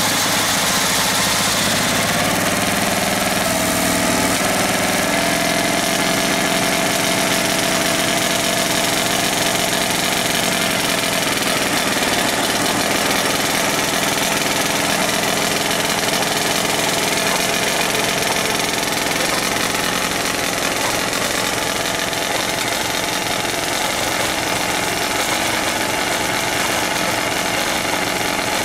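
Vintage Caterpillar diesel engine of a Lokomo jaw rock crusher running steadily. A whine rises in pitch over the first few seconds as the engine picks up speed, then holds level.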